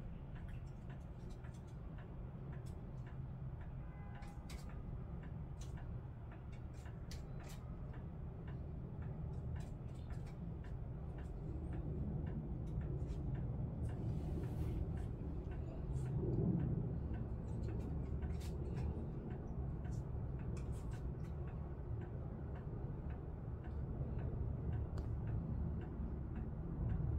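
Steady low background rumble with scattered light clicks and ticks at irregular intervals.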